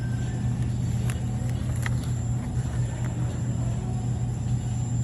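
Steady low rumble and hum of a car driving, with a couple of faint clicks about one and two seconds in.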